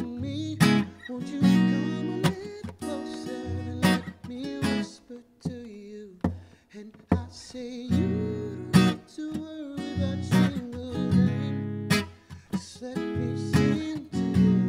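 Acoustic guitar strummed in chords, with sharp strokes and ringing chords between them.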